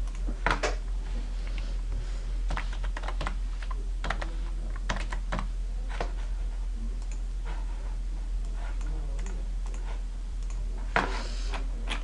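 Typing on a computer keyboard: irregular, scattered key clicks.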